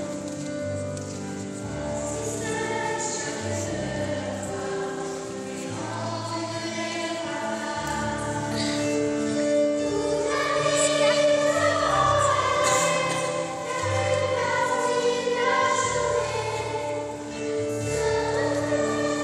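Children's choir singing a song with accompaniment that carries a low bass line, growing louder about halfway through.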